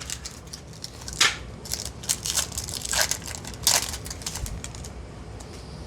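Yu-Gi-Oh! Spell Ruler booster pack's foil wrapper being torn open and crinkled by hand: a run of sharp crackles and rustles that dies away after about four and a half seconds.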